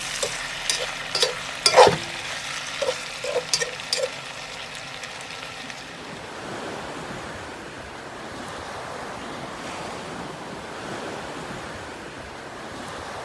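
A utensil clinking against a cooking pot about a dozen times, then chicken sizzling steadily as it browns in the pan.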